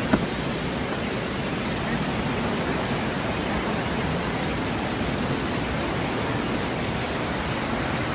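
Steady rush of a waterfall in spate, its river swollen by rain, with one short knock right at the start.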